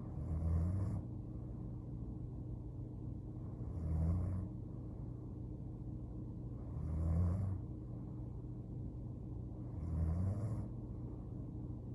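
A sleeping young woman snoring: four low, breathy snores, each about a second long and about three seconds apart, over a steady low hum.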